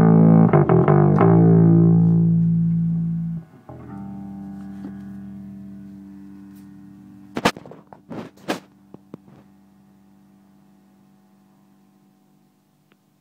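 Fender Jazz Bass with flatwound strings played through a clean amp and a distorted amp at once: a quick run of notes, then a last note left to ring and die away over several seconds. A few sharp clicks come partway through the fade.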